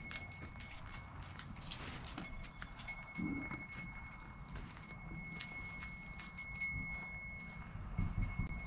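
Goats moving about on dry dirt behind a wire fence: scattered light clicks and scuffs, with a low rumble throughout and a short louder sound about three seconds in.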